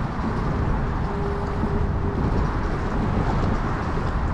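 Steady rushing outdoor noise, heaviest in the low end: wind on the microphone and choppy water around a small open boat. A faint thin steady tone sounds for about a second and a half starting about a second in.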